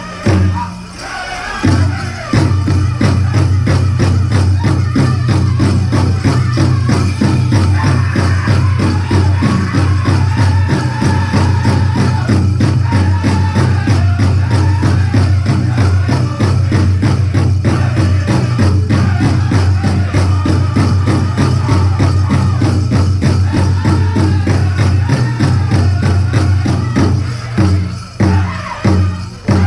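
Powwow drum group singing a chicken dance contest song over a large shared drum struck with a fast, steady beat, with the dancers' leg bells jingling. A few separated heavy beats sound near the start and again near the end.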